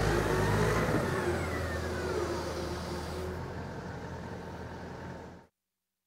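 Komatsu HB205-1 hybrid excavator running through a downswing, its engine held at low speed, with a whine that falls in pitch about two seconds in. The machine sound slowly fades, then cuts off sharply about five and a half seconds in.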